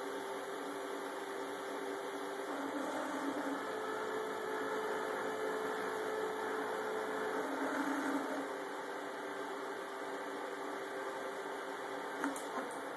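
Stepper motors of a homebuilt SeeMeCNC 3D printer running a test print: a steady whine whose pitch shifts every few seconds as the moves change, with a short click near the end.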